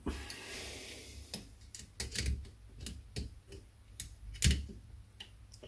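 Handling noise of digital calipers on the steel teeth of a triple-row primary chain wheel being measured: irregular light metallic clicks and knocks, the loudest about four and a half seconds in.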